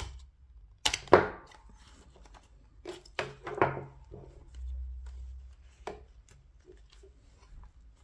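Plastic clicks and snaps as the clip-on facial interface is worked off a Meta Quest 3 headset, loudest about a second in, with another cluster around three seconds in and a single click near six seconds. A brief low rub of handling comes about five seconds in.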